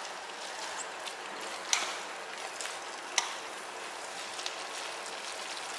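Creamy spaghetti sizzling in a pan as it is tossed with a fork, with two sharp clicks of the fork against the pan, one about two seconds in and one about three seconds in.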